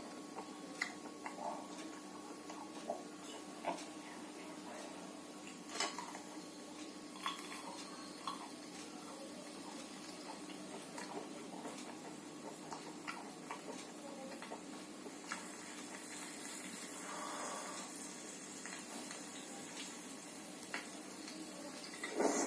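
Scattered light clicks and clinks of chopsticks and utensils against dishes during a meal, over a faint steady hum.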